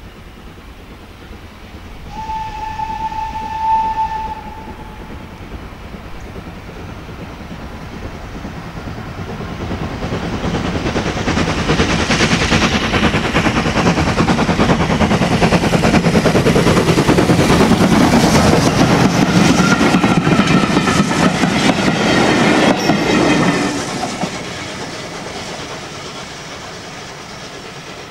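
LSWR T3 Class steam locomotive No. 563, a Drummond 4-4-0, blows one steady whistle of about two seconds. It then comes past working hard, the exhaust beat and the clatter of its train building to a loud passing rush and fading as it draws away near the end.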